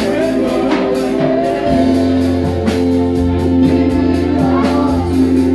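Gospel worship music with singing over sustained instrumental chords and a steady beat; a deep bass note comes in about two seconds in.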